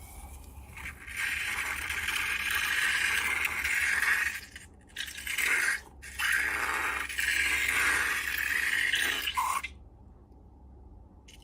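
Slime being worked with long balloons, making a scraping, rustling noise in stretches of a few seconds. It breaks off briefly twice in the middle and stops shortly before the end.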